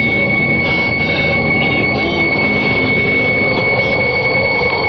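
Sound effect of a strong wind blowing steadily, with a constant high-pitched whine from the recording underneath.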